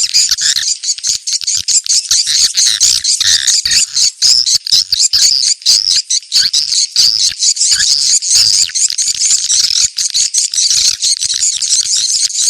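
Swiftlet lure call: a dense, unbroken twittering of rapid high chirps from many swiftlets, the 'cek lokasi' call that is played to draw swiftlets to a site for a swiftlet house.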